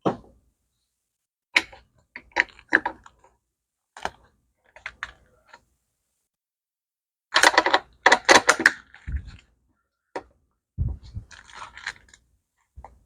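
Small metal parts and hand tools clinking and clattering as they are handled, in scattered clicks with a denser run of clatter around the middle and a few dull thuds toward the end.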